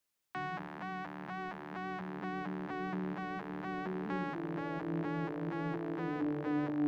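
Synthesizer intro music. A bright note pulses about twice a second over a held chord, the chord changes about four seconds in, and the music slowly grows louder.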